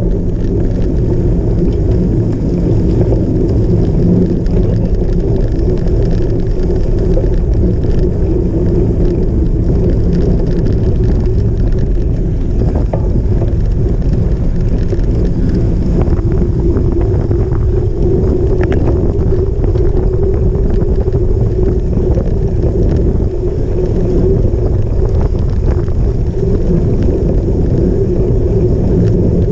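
Cyclocross bike being ridden over rough off-road ground: a steady loud rumble of tyres and bike, with wind buffeting the microphone and a few light knocks.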